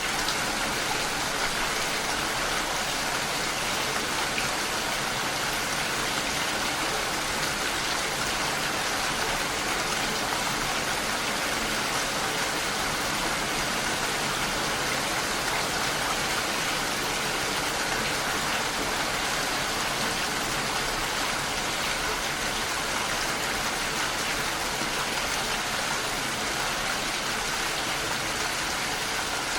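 Steady rain falling, an even hiss with no breaks or single loud drops.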